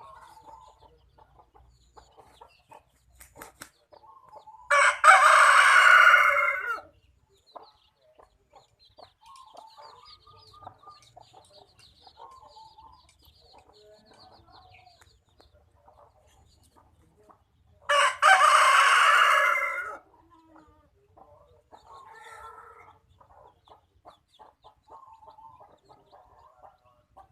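Kampung (Indonesian village) rooster crowing twice, each crow about two seconds long and much louder than everything else, with chickens clucking softly in between.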